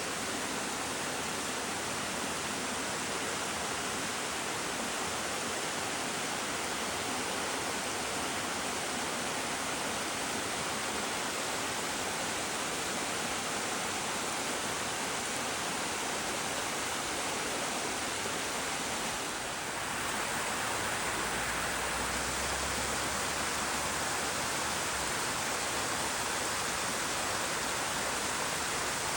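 Water of a small waterfall falling in several steps, a steady rushing noise. About two-thirds of the way through it dips briefly and comes back slightly louder.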